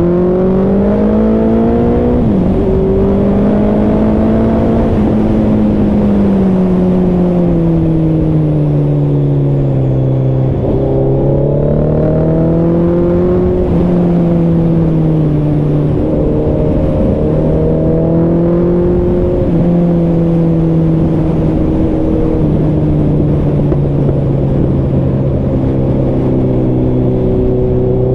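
Suzuki superbike's engine running on the move, its pitch rising and falling in slow waves as the throttle is opened and eased. A sudden dip about two seconds in and another around ten seconds sound like gear changes. A steady rushing noise runs underneath.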